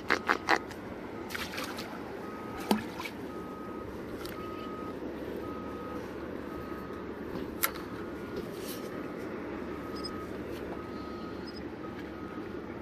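A steady low rumble with a faint high-pitched beep repeating about every two-thirds of a second. A few sharp clicks come near the start and once more past the middle.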